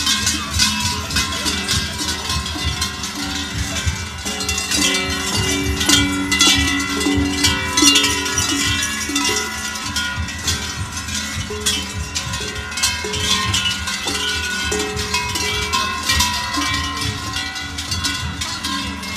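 Large cowbells worn on Krampus costumes clanging and jangling continuously as the figures move, many bells of different pitches striking together.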